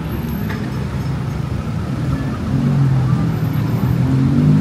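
Street traffic: a motor vehicle's engine running close by, growing louder and slightly higher in pitch through the second half, over general traffic noise.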